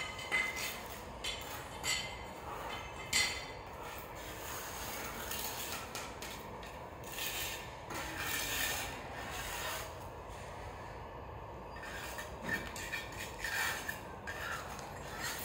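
Irregular scraping and brushing strokes on a tiled floor, typical of a broom sweeping and hand tools working at tiles, with a few sharp clicks in the first few seconds.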